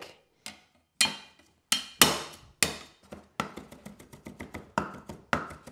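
Chinese cleaver chopping ginger on a round wooden chopping block: a few separate knocks, then a quicker run of chops, several a second, from about halfway.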